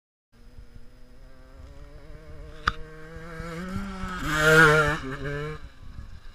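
125cc two-stroke enduro dirt bike coming up to and past the camera under throttle, its engine climbing in pitch and loudness to a peak about four and a half seconds in, then falling away. A single sharp knock about halfway through.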